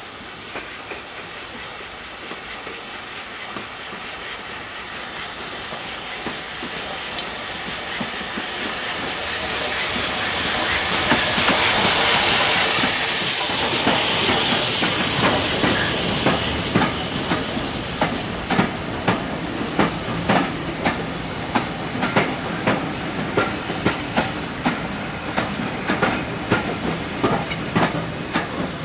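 Steam locomotive passing close by with a hiss of steam that builds and is loudest about twelve seconds in. Then its carriages roll past with a steady clickety-clack of wheels over rail joints, one to two clicks a second.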